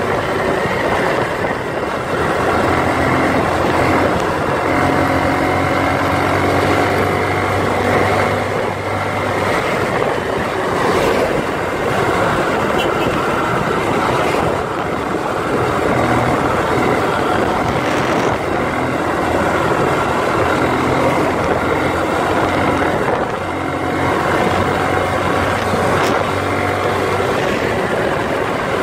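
Motorcycle engine running while riding, with steady wind and road noise; the engine's pitch shifts up and down with speed.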